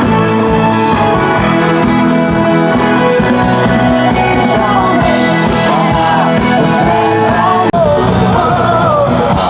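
Music with sustained instrumental notes and a singing voice coming in about halfway through.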